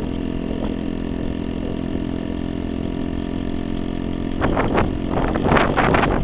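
2003 Honda Metropolitan scooter's small four-stroke engine running steadily under way at part throttle, below the three-quarter mark where it otherwise coughs and stumbles. Rough, gusty noise comes in over it in the last couple of seconds.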